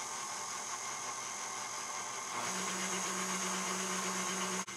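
KitchenAid Artisan stand mixer running at slow speed, its motor humming steadily as the dough hook stirs the liquid bread mixture in the steel bowl. A lower steady hum joins about halfway through, and the sound cuts off abruptly near the end.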